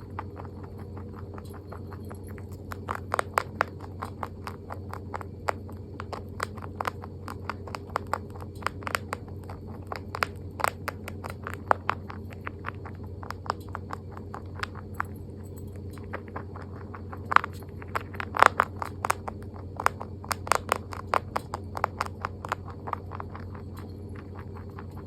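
A rabbit chewing its food: quick runs of sharp crunching clicks, several a second, coming in bursts with short pauses between them, over a steady low hum.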